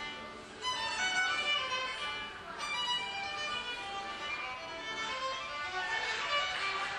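Solo violin played by a child, a melody of bowed notes changing pitch every fraction of a second.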